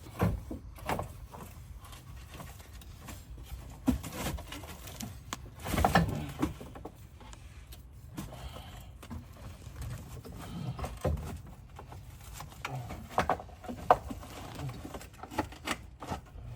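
Irregular clanks, knocks and rattles of tools and metal parts during work under a car, with a louder clatter about six seconds in and a sharp knock near the end.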